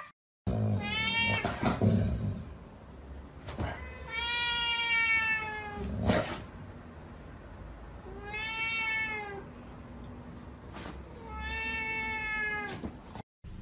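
Kitten meowing four times, high-pitched drawn-out cries, the later three long and slightly arching, with a few light knocks between the calls.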